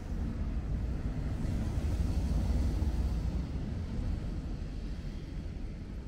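Low rumbling city street ambience on a wet day, the kind of rumble a passing vehicle or distant traffic makes. It swells about two seconds in and fades gradually.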